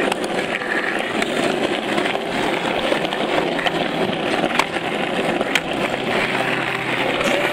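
Skateboard wheels rolling over rough asphalt: a steady gritty rolling noise with scattered small clicks.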